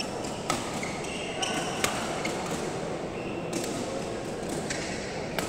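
Badminton rally: sharp cracks of rackets striking the shuttlecock, the loudest just under two seconds in, with short squeaks of shoes on the court floor. Spectators chatter underneath in a large, echoing hall.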